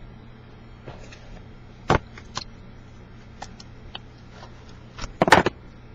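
Cardboard box and card wrapping being opened by hand: scattered short clicks and crinkles, with a louder burst of rustling near the end.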